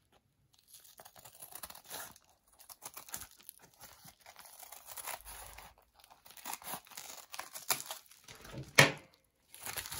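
A postal parcel's packaging being torn open and crinkled by hand: irregular crackling and ripping, with one louder crack near the end.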